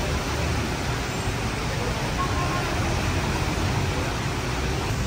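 Steady hiss of falling rain mixed with the low rumble of traffic and tyres on a wet street.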